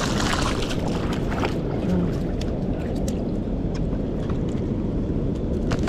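Steady rush of water from a dam spillway, with a hooked walleye splashing in the shallows over the first second or so and a few sharp clicks and taps.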